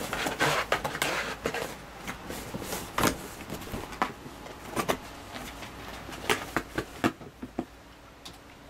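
A cat chewing and tearing at a cardboard box: crackling and scraping of cardboard, with sharp cracks and knocks as the box is bitten and shoved about, thinning out near the end.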